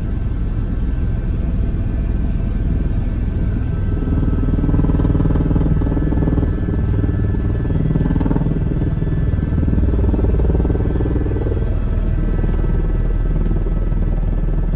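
Steady low drone of a helicopter's rotor and engine, heard from inside the cabin in flight.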